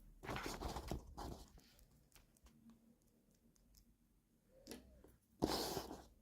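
Toy packaging being handled during an unboxing: a few short bursts of plastic and cardboard rustling with small clicks, the loudest near the end.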